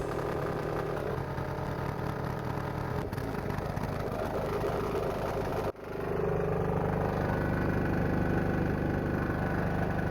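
Diesel engine of a homemade diesel-powered air compressor running steadily, driving the compressor to pump up the tank. The sound cuts out for an instant a little over halfway through, then carries on.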